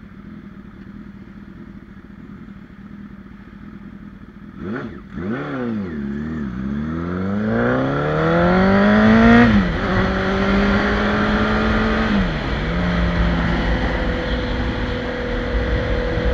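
Honda CBR1000RR Fireblade's inline-four engine idling at a stop, then revving as the bike pulls away about five seconds in. The pitch climbs through first gear and drops at an upshift near ten seconds and again at about twelve seconds. After that the engine runs steadily at cruising speed.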